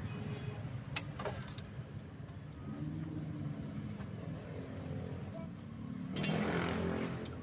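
Small metallic clicks and clinks of pliers and wire connectors being handled, with a sharp click about a second in and a louder brief rattle about six seconds in, over a steady low background hum.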